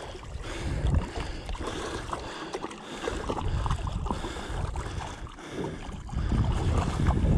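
Wind buffeting the microphone over water lapping and splashing against the side of the boat, growing louder about six seconds in.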